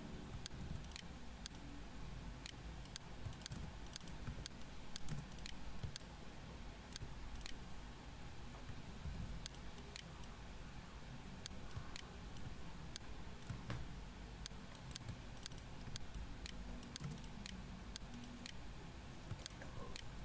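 Computer mouse and keyboard clicks at irregular intervals, sometimes several in quick succession, over a faint low hum.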